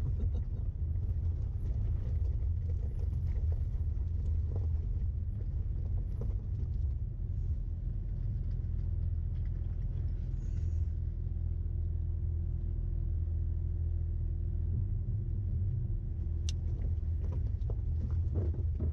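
Vehicle driving: a steady low engine and road rumble, with a faint steady hum coming in about halfway through.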